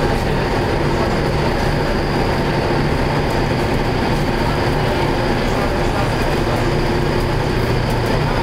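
A boat's engines drone steadily under the rush of water along the hull, heard from inside the cabin.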